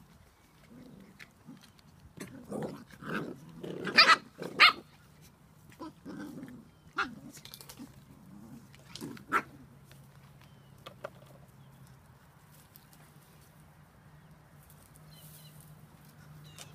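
Seven-week-old Spanish Water Dog puppies barking and yapping as they play-fight, with a flurry of sharp barks about two to five seconds in, the loudest two close together. A few more yaps follow, then it goes quieter.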